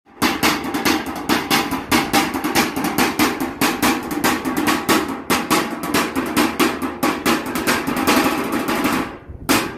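Two wooden drumsticks beating a fast, steady rhythm on a square metal tin, the drum used for Samoan fire knife dancing. Each strike rings with a metallic tone. The beat stops about nine seconds in, followed by one last strike.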